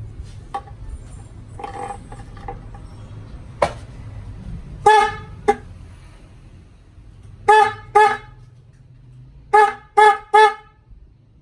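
Bosch Evolution electric car horn sounding a series of short toots of one steady pitch: a pair about five seconds in, another pair about two seconds later, then three quick toots near the end, with fainter brief blips before them.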